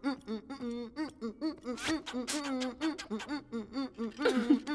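A cartoon character laughing in a long run of short, quick pitched bursts, several a second, louder a little before halfway and again near the end.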